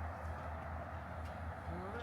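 Steady outdoor city background: a low hum and an even hiss, like distant traffic, with no distinct event standing out.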